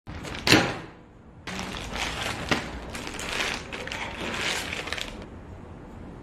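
Flat beam windscreen wiper blades handled on a table: scraping and rustling with a sharp click about two and a half seconds in, after a single loud sudden noise about half a second in.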